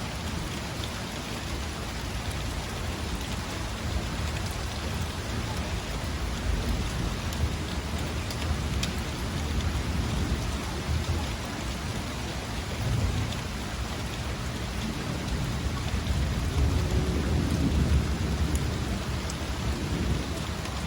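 Steady rain falling, with an unsteady low rumble underneath that grows louder in the last few seconds.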